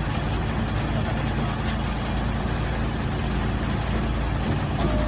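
Drum wood chipper running with a steady, dense low drone and a noisy hiss over it.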